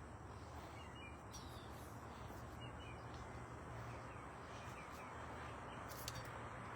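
Faint garden ambience: small birds chirping now and then over a steady background hiss, with one brief high click about six seconds in.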